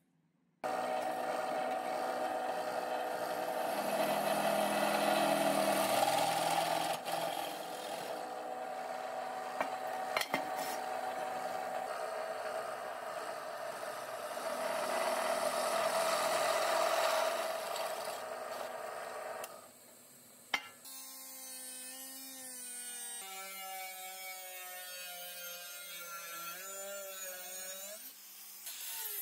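Drill press with a twist bit boring into a thick steel block: a steady, noisy cutting sound, loudest in two stretches. About twenty seconds in it stops, and a quieter whine with several pitches that shift follows.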